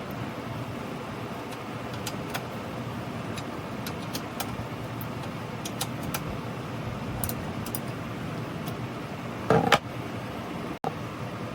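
Scattered light metallic clicks and clinks of hand tools and parts being handled over steady background noise, with one louder clank about nine and a half seconds in.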